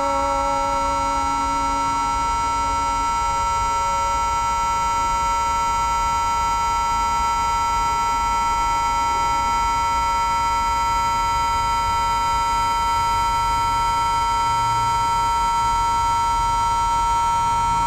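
A steady drone of several sound devices all tuned to the note A, their layered pitches held without change. A lower tone fades out about three seconds in.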